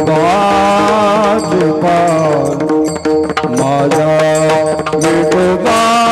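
A Marathi devotional abhang: a male voice sings a winding, gliding melody over tabla-type hand-drum accompaniment and steady held notes.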